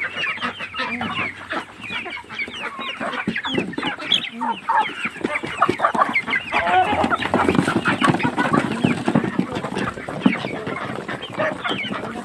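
A flock of backyard chickens clucking and calling continuously, many short overlapping calls at once: a hungry flock crowding in at feeding time.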